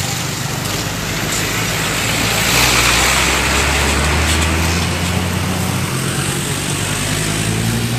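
Street traffic: vehicle engines running, one vehicle passing close about three seconds in, and an engine rising in pitch near the end.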